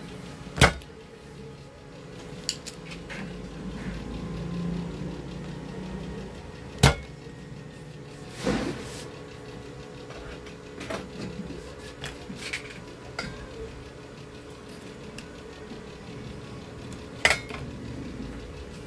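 Spring-loaded desoldering pump (solder sucker) firing three times with a sharp snap, about half a second in, near seven seconds and near the end, sucking molten solder from a circuit board's through-holes so a component can be pulled. Lighter clicks and handling noises come between the shots.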